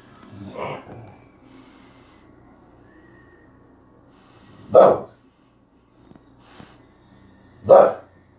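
A large dog gives short, loud, low woofs, two of them about three seconds apart, after a softer one about half a second in.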